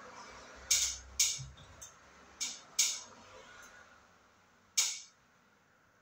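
A hand tool stripping insulation off an old house wire: five short, hissy strokes, with a gap before the last one near the end.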